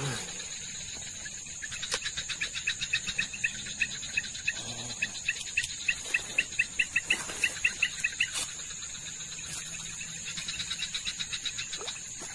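Night chorus of crickets and other calling creatures: a steady high-pitched drone throughout, with a rapid run of chirps, about five a second, that grows louder and stops about eight seconds in. A fainter run of chirps comes near the end.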